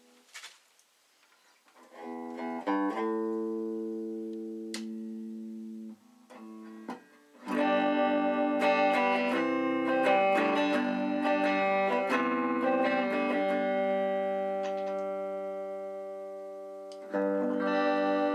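Small semi-hollow-body electric guitar of the Gibson CS-356 type, built by a luthier, being played on its own: a chord about two seconds in left to ring and fade, then a busier passage of picked notes and chords, a long chord dying away, and a new chord struck near the end.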